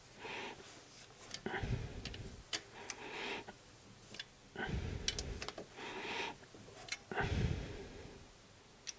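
Wrench clicking and rasping through about six short strokes, with scattered sharp metallic clicks, as the cylinder head bolts are turned a further 90 degrees in the final angle-tightening stage.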